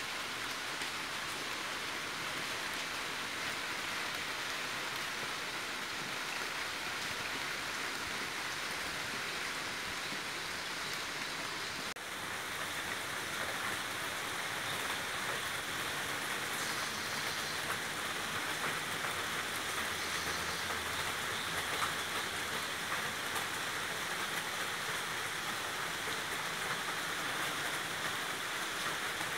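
Steady rain falling, an even hiss of drops on surfaces, with a brief dip about twelve seconds in.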